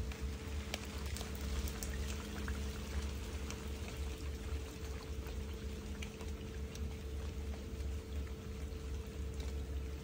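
Rain falling: a steady hiss dotted with many small drop ticks, over a low rumble and a faint steady hum.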